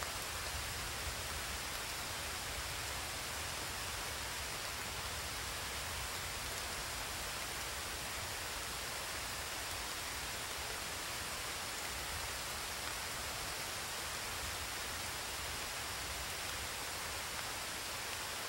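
Steady, unbroken hiss of even noise like heavy rain, the same from start to finish.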